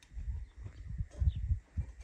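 Irregular low thumps and rumble, with a brief faint bird chirp a little over a second in.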